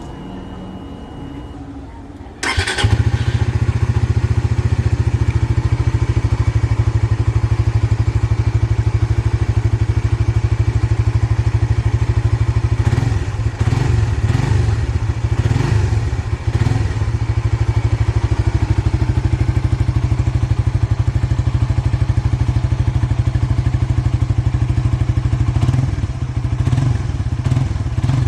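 Stock Suzuki GSX-R150's single-cylinder engine starting suddenly about two and a half seconds in, then running steadily at idle, with short uneven patches in the middle and near the end.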